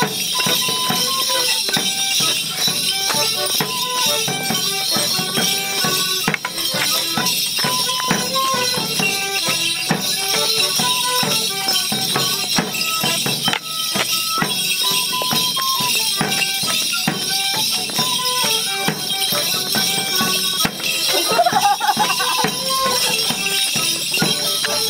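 Instrumental tune for a Border Morris stick dance, with a melody of short notes over a steady jingling, and sharp clacks of wooden sticks scattered through it.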